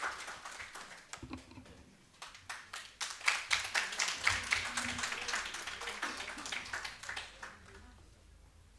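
Scattered applause from a small group clapping, dying away about seven seconds in.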